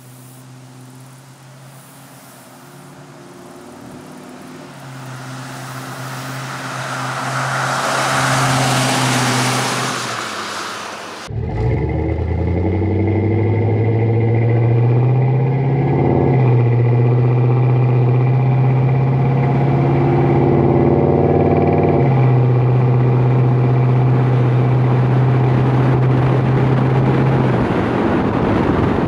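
The V8 of a 1999 Silverado 2500 with a 6.0 LQ4, running through a Summit Racing dual-chamber muffler. First it passes by, growing to its loudest about eight seconds in and fading. Then, heard close beside the truck, it pulls away with a rising note, shifts about five seconds later and cruises steadily, with another shift later on.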